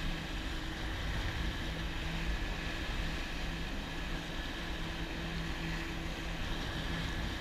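Jet ski engine running steadily under way, a constant low hum, with water rushing and spraying in the wake behind it.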